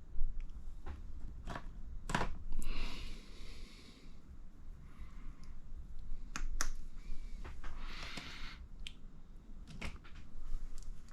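Small plastic and metal RC shock parts being handled and threaded together by hand: scattered sharp clicks and taps, with two short scraping stretches about two and a half seconds in and again near eight seconds.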